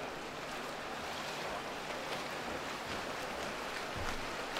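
Steady splashing and churning of pool water from several swimmers racing freestyle.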